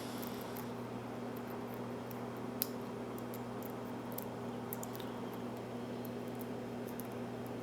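Faint, scattered clicks and light scrapes of a lock pick and tension wrench working the pins of a US Lock mortise cylinder during single-pin picking, the sharpest click about two and a half seconds in, over a steady electrical hum.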